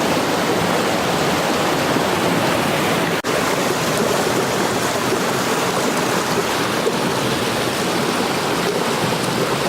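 Loud, steady rush of flowing river water, with a momentary dropout about three seconds in.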